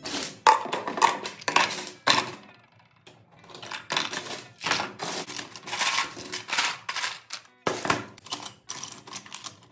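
Loose plastic LEGO bricks clattering as handfuls are scooped off a table and dropped into a plastic bin: rapid runs of clicking with two short pauses.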